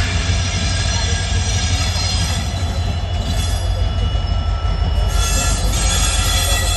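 Passenger train rolling into the station: a steady low rumble with high-pitched wheel squeal from the coaches, which grows louder about five seconds in.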